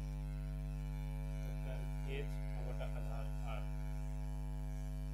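Steady electrical mains hum on the recording, a low drone with overtones, with a few faint brief sounds in the middle.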